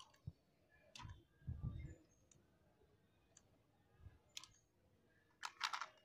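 Faint, scattered sharp clicks from a hand-built remote-control on/off relay switch being operated with a handheld TV remote, with a few dull low thumps in the first two seconds. A quick run of clicks near the end is the loudest.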